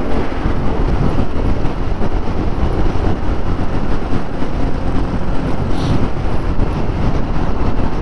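Wind rushing over the microphone of a Yamaha Majesty C big scooter cruising at highway speed, with engine and road noise underneath.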